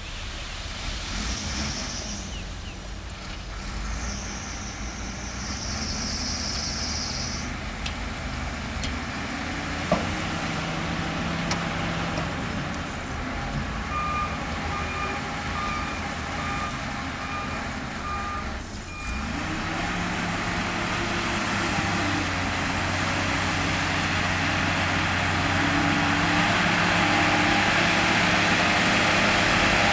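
Heavy diesel earth-moving machinery running, the engine getting louder in the second half. Two short high hisses come in the first several seconds, and midway a reversing alarm beeps about once a second for around five seconds.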